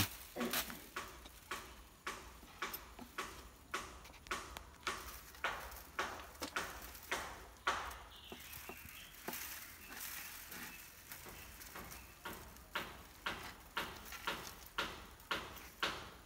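Dry coconut-leaf midribs (ekel) in a broom bundle clicking and rustling as a binding strip is threaded through and pulled tight, in short sharp clicks about two a second, easing off for a few seconds midway.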